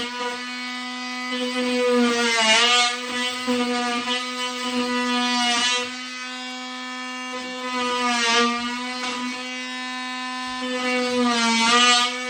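Cordless oscillating multi-tool buzzing steadily as its blade cuts an outlet-box hole in drywall. About four times the sound turns louder and harsher, with a brief dip in pitch, as the blade bites into the board.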